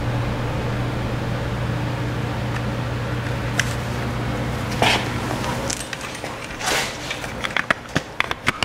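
Steady low hum of a fan running, which stops about six seconds in, under scattered light metallic clicks from drum-brake hardware being handled, turning into a quick run of clicks near the end.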